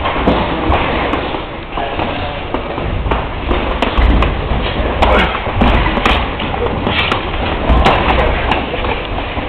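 Gloved punches and kicks landing with dull thuds, several in quick succession from about halfway through, over a steady low rumble.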